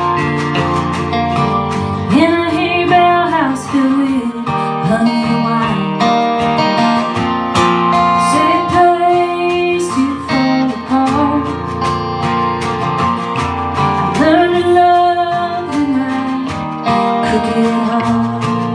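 Live acoustic band performance: strummed acoustic guitars under a female vocal melody that bends and wavers in pitch.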